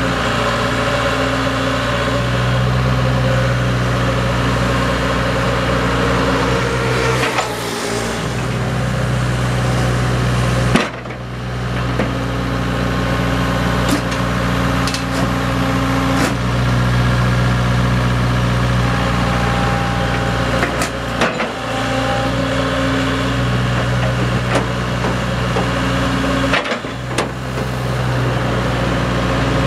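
Sumitomo S160 tracked excavator's diesel engine running while the hydraulic boom and bucket are worked, its note changing several times as the load comes on and off. A few short sharp knocks come from the moving arm.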